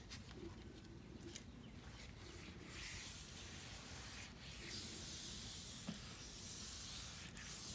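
Faint hissing and rubbing as a hand presses an end-grain wooden cutting board down into a plastic tub of mineral oil. The hiss grows stronger about three seconds in, with a few soft clicks.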